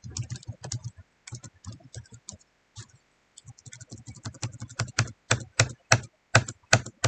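Typing on a computer keyboard: a run of key clicks, sparse and light at first, then louder, evenly spaced presses about three a second in the second half.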